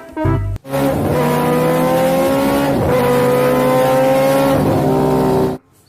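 Race car engine at high revs, its pitch climbing, dropping back about halfway through as if at a gear change, then climbing again before cutting off suddenly near the end. A snatch of children's music plays at the very start.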